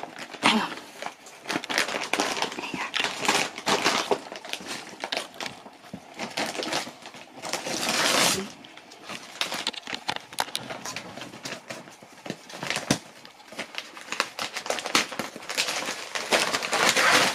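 Brown paper crinkling, crumpling and tearing as a husky rips open a paper parcel with its nose and mouth. The rustling comes in uneven bursts, loudest about halfway through and again near the end.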